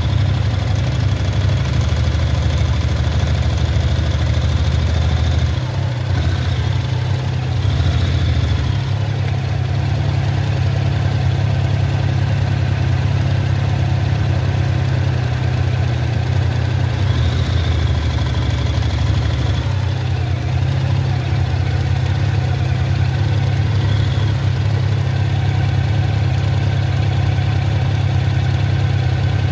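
Motorcycle engines idling steadily in stop-start traffic, a low, even engine note with no revving.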